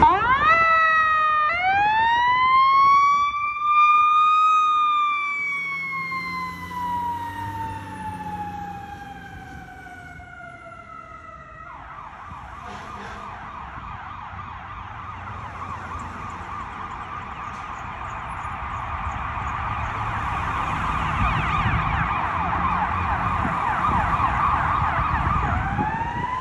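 Fire engine siren: a few quick rising chirps, then a long wail that climbs for a few seconds and slowly sinks. About twelve seconds in, the wail gives way to a fast warbling tone that grows louder, and near the end a new wail starts to rise.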